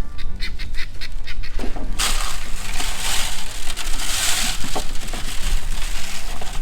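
Farm fowl calling, with scattered sharp clicks and a loud hissing rush lasting a couple of seconds, starting about two seconds in.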